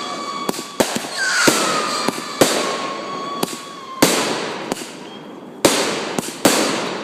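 Fireworks going off: a run of sharp bangs and crackling hiss, with a whistle that falls in pitch and then holds about a second in.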